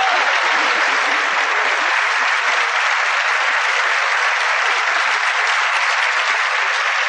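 Audience applause, steady and loud, many hands clapping together.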